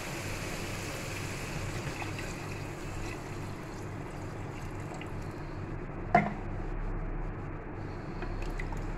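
Water poured into a pot of browned mutton curry: the steady hiss of the frying thins out as the water goes in. The spatula knocks sharply against the pot once about six seconds in, the loudest sound, as the liquid is stirred.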